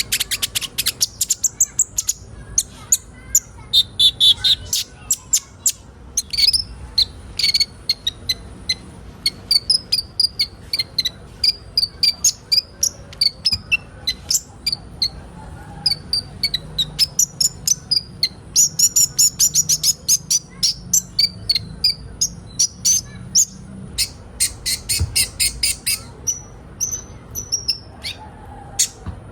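Several sunbirds (kolibri ninja) calling together: rapid runs of sharp, high chips mixed with fast twittering song phrases, overlapping without pause.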